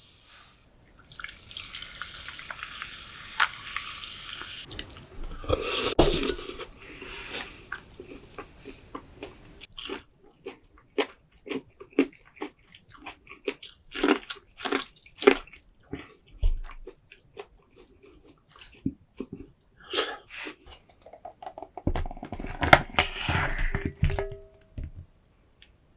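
Close-miked eating sounds from a saucy seafood boil: wet clicks and smacks of food being handled, bitten and chewed, coming one at a time. A few seconds of hissy, rustling noise come about a second in and again near the end.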